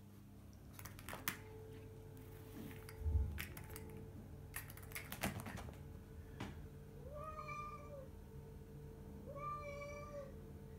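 Domestic cat meowing twice, each call about two-thirds of a second long and fairly level in pitch, in the second half. Before that come light clicks and knocks, with one louder thump about three seconds in.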